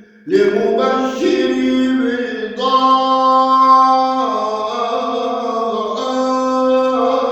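A man singing an Arabic devotional nasheed. He draws out a word into long held notes after a brief breath at the start.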